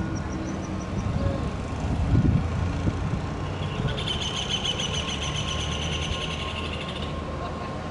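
GT22 diesel-electric locomotive hauling a passenger train as it approaches: a steady low engine and rail rumble, loudest about two seconds in. From about the middle until near the end a high, rapidly pulsing shrill sound runs over it.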